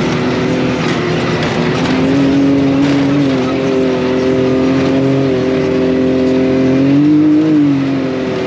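Off-road vehicle's motor running at a steady speed, its pitch rising slightly about two seconds in and again around seven seconds, over rushing wind and terrain noise.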